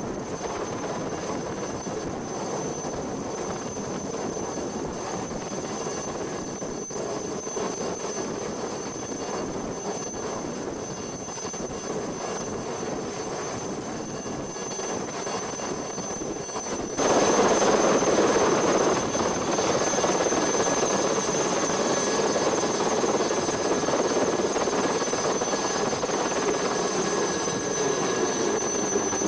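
Alouette II turbine helicopter hovering close by with a sling load, its turbine and rotor running steadily. About two-thirds of the way in the sound suddenly gets louder.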